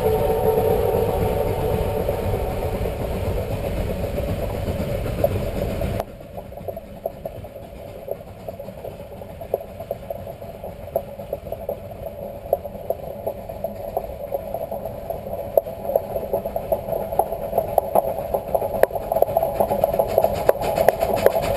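Steam whistle of locomotive 487, a Cumbres & Toltec K-36 narrow-gauge 2-8-2, sounding a steady chord that cuts off abruptly about six seconds in. After that come the locomotive's exhaust beats, irregular and growing steadily louder as it approaches under heavy smoke.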